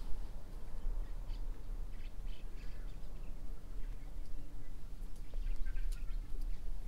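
Faint, scattered bird chirps over a steady low rumble, most likely wind or handling noise on the microphone.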